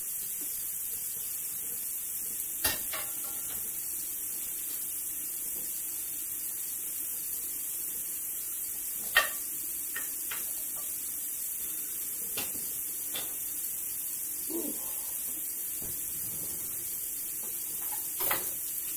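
Kitchen clatter: occasional knocks and clinks of pots, lids and utensils over a steady high hiss. The sharpest knock comes about nine seconds in, with a couple more near the end.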